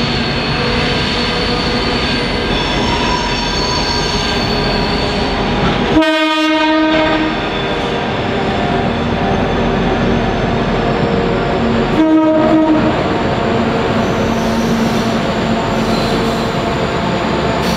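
Qube diesel locomotive lashup of VL, B and G class units running through a station, engines and wheels giving a steady heavy drone. The horn sounds twice, about six seconds apart, each blast a second or less.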